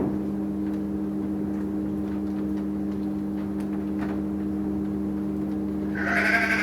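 A steady low mechanical hum runs throughout. A sheep bleats once, loudly, near the end.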